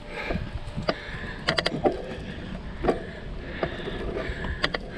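Bicycle ride heard from the bike: a steady low wind rumble on the microphone, with irregular clicks and rattles from the bike as it rolls over the pavement.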